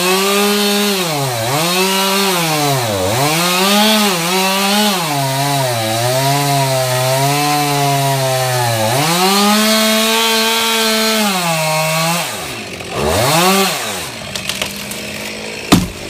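Two-stroke chainsaw at full throttle making the back cut through a eucalyptus trunk above its face notch, the engine pitch dipping again and again as the chain bites and sinking lower under load. About twelve seconds in it drops back and revs briefly twice, and near the end a single loud thud as the cut trunk lands on the ground.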